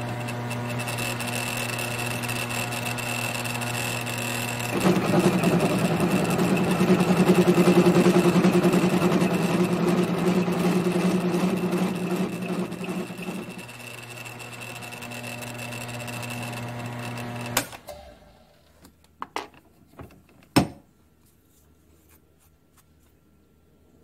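Grizzly G1007 milling machine's spindle motor running with a steady hum. About five seconds in, the end mill bites into the steel pipe, and a louder, rougher cutting noise lasts for about eight seconds before it eases off: a finishing pass taking off the last lip of a fishmouth saddle cut. Near the end the motor is switched off with a click and runs down, followed by a couple of sharp clicks.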